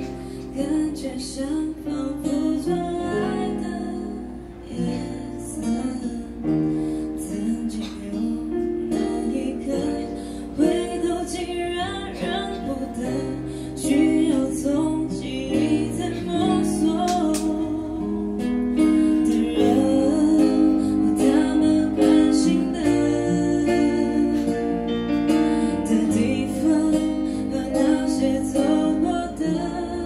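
A woman singing into a microphone with acoustic guitar accompaniment in a live band performance, growing louder about halfway through.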